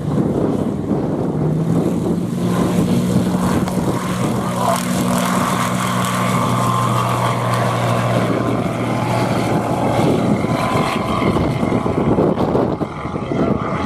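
Zenith STOL light aircraft's engine and propeller at full power on a takeoff run, lifting off close by. The engine note drops in pitch as it passes, about six and a half seconds in, then grows fainter as it climbs away.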